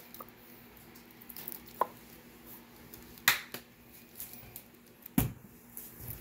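Scattered light clicks and taps of a spoon while minced garlic is spooned into a plastic oven bag of seafood-boil ingredients. The sharpest click comes about three seconds in and a duller thump a couple of seconds later, over a faint steady hum.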